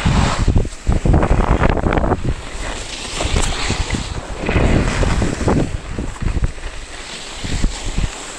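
Wind buffeting the microphone of a camera carried by a skier moving downhill, an uneven, gusting rumble, with the hiss of skis running over packed, tracked snow.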